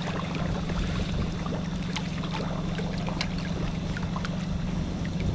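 Boat's outboard motor idling steadily, a constant low hum under a steady hiss.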